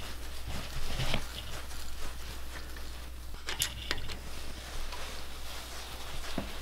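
Hand ratchet turning head studs into a Honda B18 engine block: a few scattered ratchet clicks and metal taps over a low steady hum.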